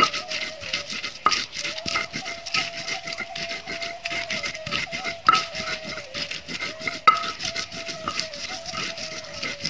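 Red chilies being ground on a flat stone grinding slab: a grinding stone rubbed back and forth over the slab in quick repeated scraping strokes, with a few sharper stone-on-stone clacks. A steady high hum sits underneath.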